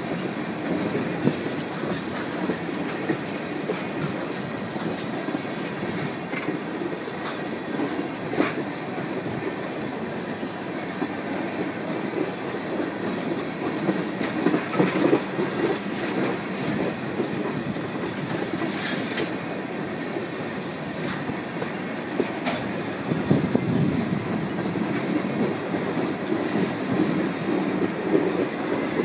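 Freight train cars rolling past on the rails: a steady rumble with scattered wheel clicks and a few brief wheel squeals.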